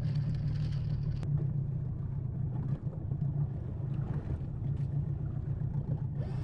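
Yamaha 30 hp outboard motor running steadily under way, a low even drone.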